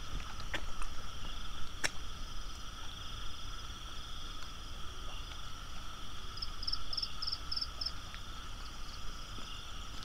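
Chorus of frogs and insects calling steadily at several pitches, with a short run of about five quick high chirps a little past the middle and a couple of sharp clicks in the first two seconds.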